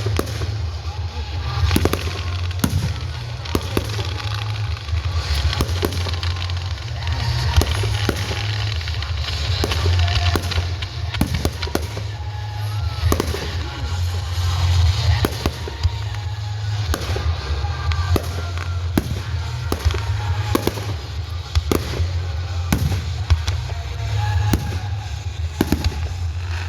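Fireworks going off: a steady run of sharp bangs, roughly one a second, with crackling between them, over a constant low rumble.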